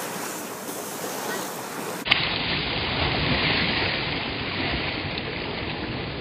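Sea water splashing and churning as a swimmer kicks and strokes in shallow water close by. The sound changes abruptly about two seconds in.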